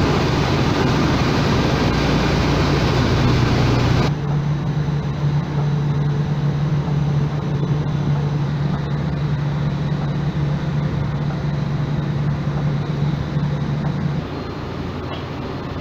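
A 10-ton-per-hour thermal desorption unit in operation: a steady industrial machinery hum with a strong low drone. About four seconds in the sound changes abruptly and loses most of its hiss, and the low hum drops near the end.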